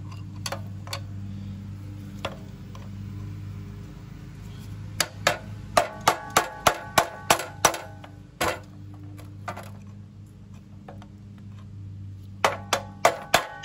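Hammer blows ringing on metal as a stuck pressure-washer pump is driven off the engine shaft it has rusted onto. A few single knocks come first, then a quick run of about a dozen strikes at roughly three a second, and another short run near the end, over a low steady hum.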